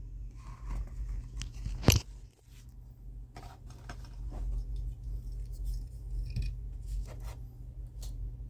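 Handling noises of small objects being picked up and set down: light clicks, taps and scrapes, with one sharper click about two seconds in, over a low steady hum.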